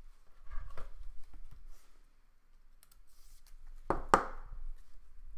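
Trading cards in rigid plastic holders being handled: light clicks and rustles, a short sliding hiss, then two sharp plastic clacks about four seconds in as a cased card is set down on a stack of others.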